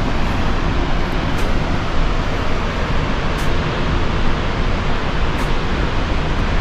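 A 90-foot waterfall rushing steadily, an even, full noise of falling water.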